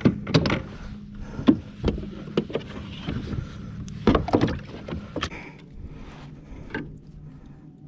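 Scattered knocks and clicks of gear being handled on a fishing kayak, over a steady low hum.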